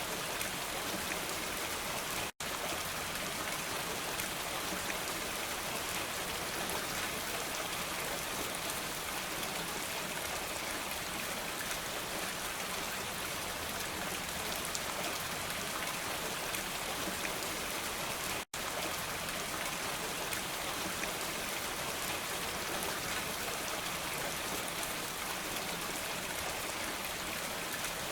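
Steady rain falling, a dense even hiss with the patter of single drops through it. The sound cuts out for an instant twice, about two seconds in and again about eighteen seconds in.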